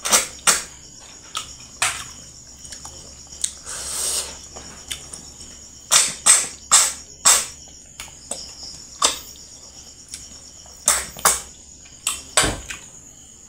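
Close-miked eating sounds of a man chewing a handful of rice and chicken curry: wet lip smacks and mouth clicks in irregular clusters. Crickets trill steadily in the background.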